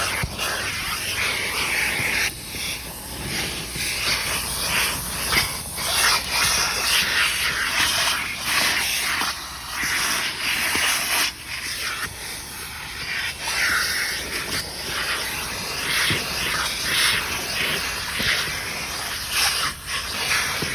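Vacuum cleaner sucking air while a car's interior is cleaned: a hiss that swells and dips as the nozzle moves over the surfaces.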